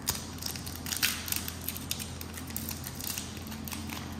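Crinkling, crackling and tearing of the plastic sleeve and foil wrapper of a Pokémon TCG sleeved booster pack being opened by hand, an irregular run of sharp crackles and snaps.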